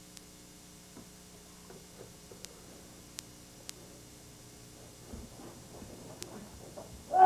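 Karate practitioner's bare feet scuffing and shuffling on a carpeted mat, with his uniform rustling, as he moves through a kata; a few faint ticks sound early on. At the very end a loud, short kiai shout begins.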